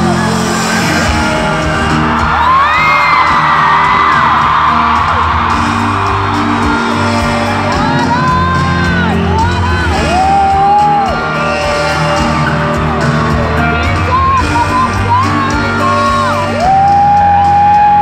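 Live concert music over a loud PA in a large hall, heard from within the crowd, with whoops from the audience and long held vocal notes over it.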